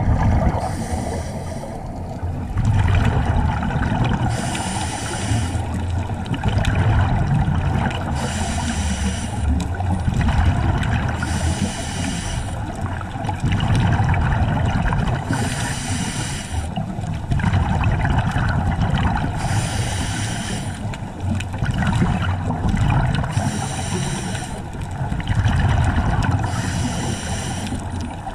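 Scuba diver breathing on a regulator, heard underwater: a bubbling rush of exhaled bubbles about every four seconds, over a steady low rumble of water on the camera housing.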